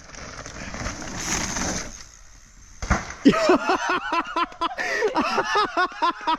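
A mountain bike's knobby tyres rolling fast over dirt for about two seconds, a single sharp thud of the bike landing a jump just before three seconds in, then several riders whooping and cheering loudly.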